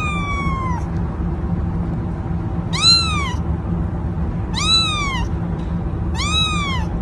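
Kitten meowing four times, high-pitched cries that each rise and then fall in pitch, spaced about one and a half to two seconds apart.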